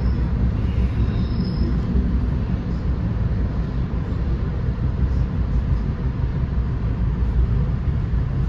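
Steady low rumble of an NJ Transit Comet passenger coach running at speed, heard from inside the car: wheels on rail and the car's running noise.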